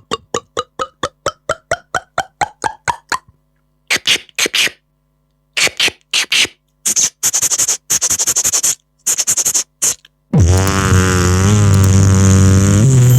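Beatboxer making sound effects with the mouth. First comes a fast run of short pitched clicks that climb in pitch, then a series of short hissing bursts, and from near the end a long, loud buzzing vocal tone.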